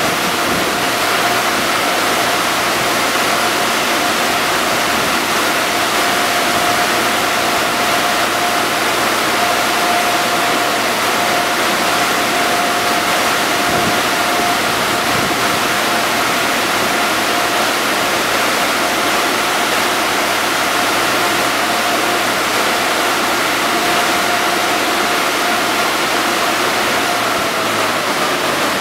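Car wash tunnel's overhead air dryer blowers running: a steady rush of air with a constant whining tone, easing off near the end.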